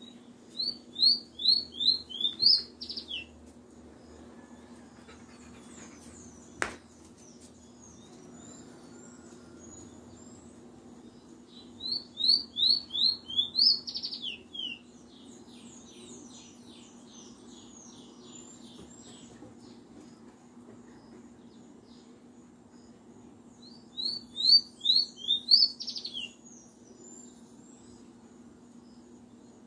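Caged fire red, a small seedeater, singing three short songs about ten seconds apart. Each song is a run of five or six quick, clear descending notes ending in a fast trill. A single sharp click comes about a quarter of the way through, over a steady low hum.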